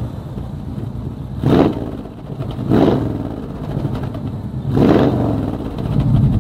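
Pontiac 400 cubic-inch V8 in a 1967 Firebird, freshly started and idling, blipped three times: short revs about a second and a half in, near the middle and again about five seconds in.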